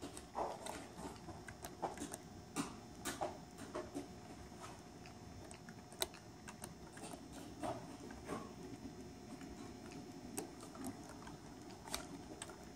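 Irregular sharp clicks and knocks of rummaging through boxes, over the quiet mechanical running of a model freight train whose locomotive has no sound decoder, with a faint steady hum.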